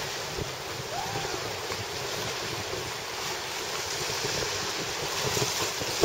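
Wind buffeting the microphone over a steady wash of sea waves along a rocky shore.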